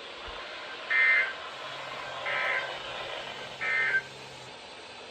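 Three short bursts of EAS SAME digital data, the two-tone warble of the End of Message code, about a second and a quarter apart, marking the end of the warning broadcast.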